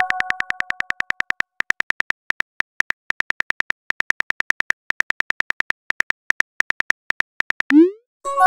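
Simulated phone-keyboard typing clicks from a texting-story animation, a rapid run of about eight ticks a second with two short pauses, as a message is typed out. It opens on the fading tail of a message chime; near the end a quick rising swoop marks the message being sent, and a new chime starts right at the end.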